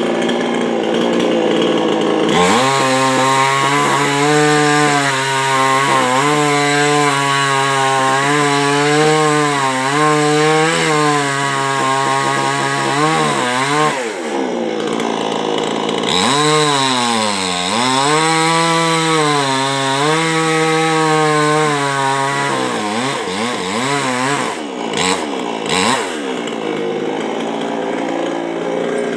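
Chainsaw cutting through a coconut trunk, its engine held at high revs with the pitch wavering under load. It drops sharply twice in the middle and picks up again each time, then revs up and down rapidly near the end.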